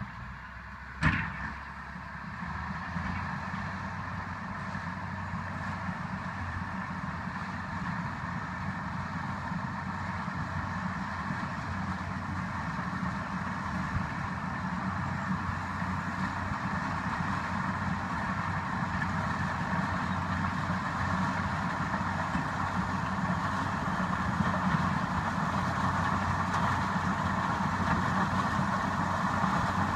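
Caterpillar D6H LGP crawler dozer's turbocharged six-cylinder diesel running while it works, growing steadily louder as the machine approaches. A single sharp knock about a second in.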